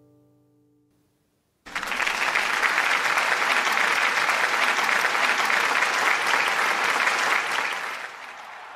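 The tail of a plucked musical note dies away, then about two seconds in applause starts abruptly, holds steady and fades out near the end.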